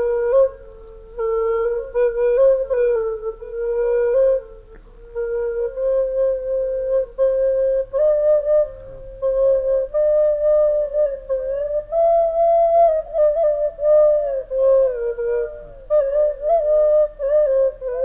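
Background music: a slow solo flute melody of long held notes with short breaks between phrases, climbing higher in the middle and settling back down near the end.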